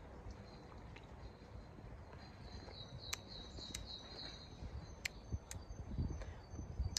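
Quiet outdoor ambience with small birds chirping briefly around the middle, four sharp ticks, and a low rumble underneath.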